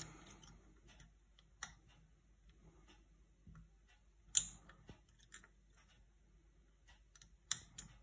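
Lock pick and tension wrench working the pins of a pin-tumbler lock held in a deep false set under very light tension: a handful of small clicks and scrapes, the sharpest about four and a half seconds in, as the pick hunts for the spool pin.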